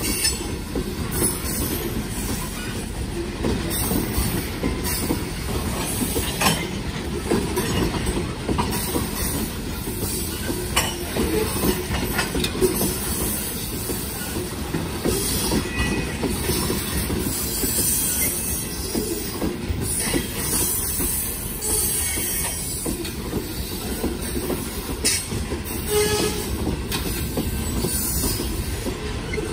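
Open-top cars of a ballast train rolling past, a steady low rumble of wheels on rail with scattered clanks and knocks and brief wheel squeal.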